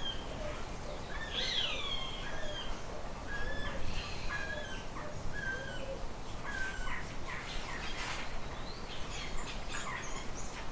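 Several birds calling and chirping: swooping calls near the start, then a run of short, level chirps roughly a second apart, and a cluster of sharp, quick notes near the end, over a steady low background hiss.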